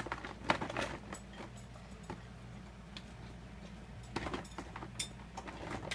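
Scattered light clicks and knocks of handling, with rustling, over a faint steady low hum.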